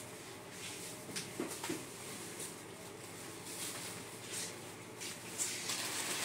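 Faint rustling of plastic snack packets and light clicks as goods are taken from a shop shelf rack and handled, over low room tone.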